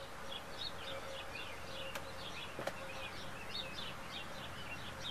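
Small birds chirping in quick, irregular bursts, over a faint steady hum, with two brief clicks around the middle.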